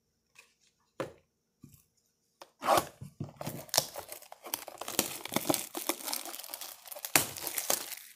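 Plastic wrap being torn and crinkled off a cardboard trading-card blaster box to open it. After a couple of light taps, the crackling tearing starts about two and a half seconds in and goes on in bursts, with sharp rips near the start and near the end.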